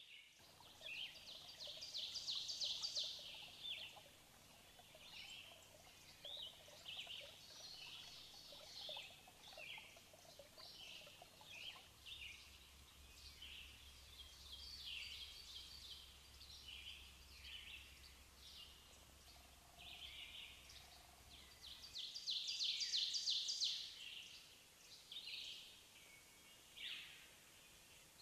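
Small birds chirping and twittering, many short high calls, with a louder rapid trill near the start and again near the end.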